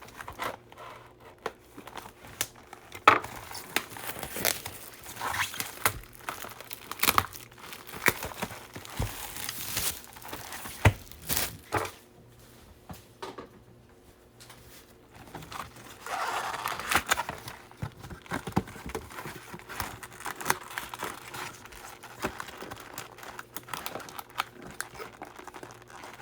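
Plastic wrap and cardboard packaging of a baseball-card hobby box being cut open and torn off: irregular crinkling, tearing and small clicks, with a quieter stretch about halfway through.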